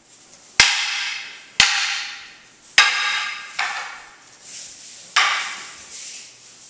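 Wooden aikido practice weapons striking each other in paired weapons practice: three sharp, loud clacks in the first three seconds, then two softer ones, each ringing out in the hall.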